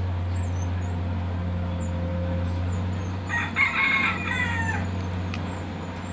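A native gamecock rooster crows once, a long call about three seconds in, over the steady low drone of a rice harvester's engine.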